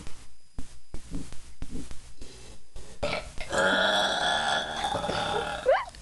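A person belching as part of a burping contest: a few short sounds in the first three seconds, then one long drawn-out burp of about two seconds that ends near the end.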